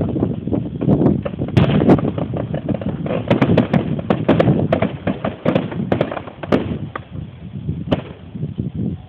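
Fireworks going off: a rapid string of sharp bangs and crackles over a low rumble, thickest in the middle and thinning out near the end.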